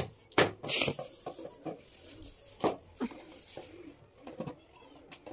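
Blue plastic lid of an insulated roti casserole knocking and scraping against its bowl as a toddler handles it: a few sharp clacks, the loudest in the first second and another a little before the middle, with softer rubbing between.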